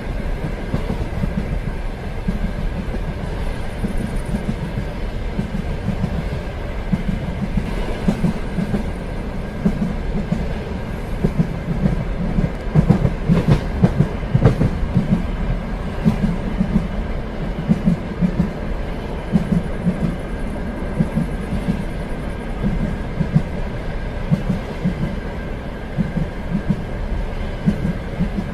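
Train running along the track: a steady low rumble with the irregular clatter of wheels over rail joints, and a faint steady whine above it. A run of louder knocks comes about halfway through.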